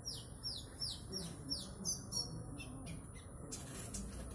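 Konin songbird singing a run of high whistled notes that each slide downward, about three a second, then breaking into a quicker, choppier chatter before a short pause near the end.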